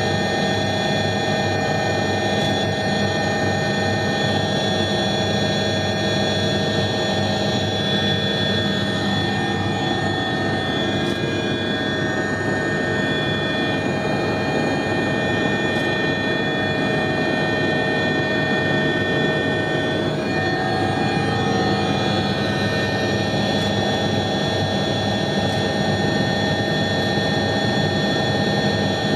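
Cabin noise of an Agusta A109E Power twin-turbine helicopter in flight just after takeoff: a steady whine of several held tones over a constant rotor and engine drone.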